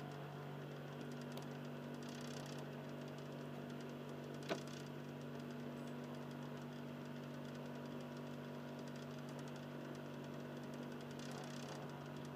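Xbox 360 slim's Philips/Lite-On DVD drive motor running in standby with a soft, low grinding hum and a fine ticking texture. A single sharp click about four and a half seconds in.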